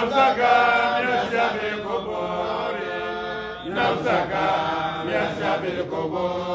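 A man's voice chanting a melodic religious refrain, drawing out long held notes that slide between pitches.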